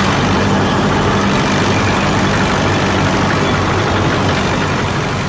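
Heavy tracked-vehicle engine running steadily with a low hum under a loud rumble, starting abruptly and slowly fading near the end: a tank engine sound effect.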